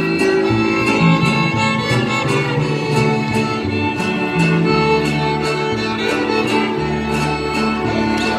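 Mexican folk string ensemble playing dance music: violins carry the melody over a strummed, moving bass line, with a steady beat of about three strokes a second.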